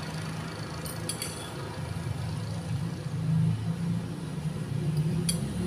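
Metal spoon clinking against a bowl: two quick clinks about a second in and one more near the end, over a steady low rumble.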